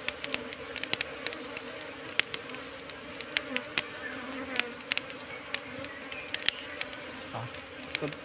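Honey bees from a wild colony swarming and buzzing steadily around a smoked nest in the ground, with many short sharp ticks scattered through the buzz.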